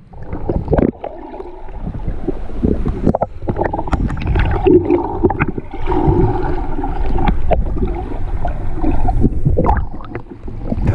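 Muffled underwater sound heard through a camera held beneath the surface in shallow sea water: a continuous low rumble of moving water with many scattered clicks and knocks.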